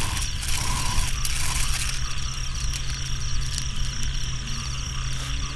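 Night chorus of frogs and insects, a steady high trilling, over a steady low drone.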